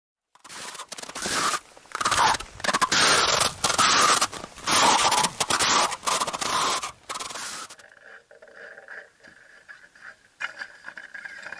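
Footsteps crunching over hard, wind-packed snow on frozen lake ice, a scraping step about once a second. About eight seconds in the crunching stops and a much quieter stretch follows, with a faint steady high tone.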